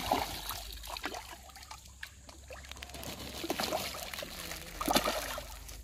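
Pond fish feeding at the surface: irregular small splashes and slurps as they break the water for floating feed pellets, with a louder splash about five seconds in.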